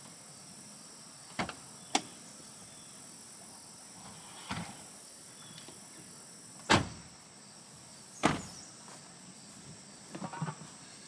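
Pickup truck doors being opened and shut: a few clicks and thuds, with the loudest slam about two-thirds of the way in. A steady chorus of insects runs underneath, and a few footsteps follow near the end.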